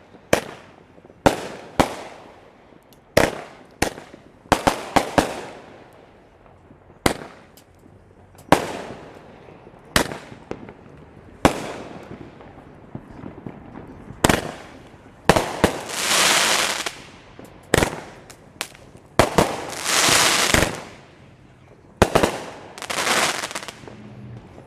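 Consumer aerial fireworks going off in a finale: a string of about twenty sharp bangs at uneven spacing. A few longer bursts last a second or more each, in the middle and later part.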